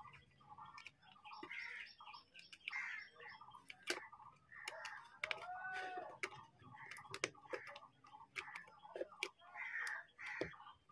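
Faint small clicks and taps as the charging sub-board of an opened Samsung Galaxy A10 is pressed back into place by hand, over scattered faint high chirps in the background.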